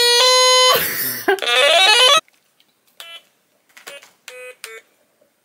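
Stylus-played pocket synthesizer giving buzzy electronic notes. A held note slides and sweeps in pitch for about two seconds and cuts off suddenly. After that come short, quieter single notes tapped out one at a time.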